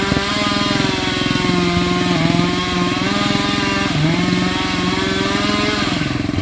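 Stihl MS 462 two-stroke chainsaw running at high revs in the cut, its pitch dipping briefly under load about four seconds in and again near the end, with a second engine, the homemade pulling winch, running beneath it.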